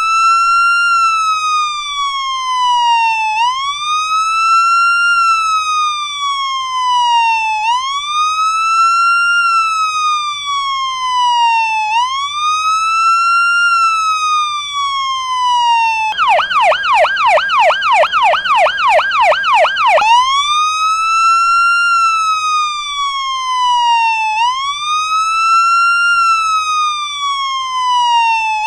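Electronic police siren in wail mode, each cycle rising quickly and falling slowly over about four seconds. About two-thirds of the way through it switches to a rapid yelp for about four seconds, then goes back to the slow wail.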